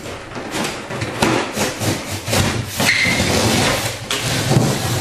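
Corrugated cardboard box being cut with a blade: a rapid series of rough, scraping sawing strokes through the cardboard, with a brief squeak about three seconds in.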